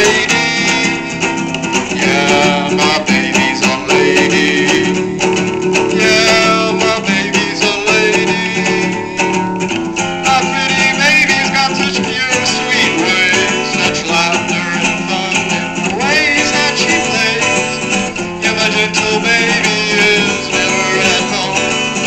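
Acoustic guitar strummed and picked live, with a man's voice at the microphone.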